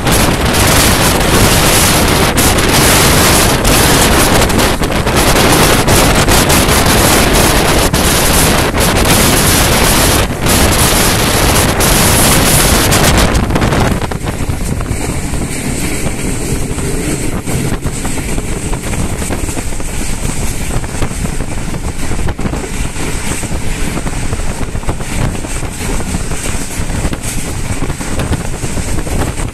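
Moving passenger train heard from an open carriage window: wind buffeting the microphone over the rush and rumble of the train running at speed. About fourteen seconds in the noise drops suddenly to a quieter, steadier rush.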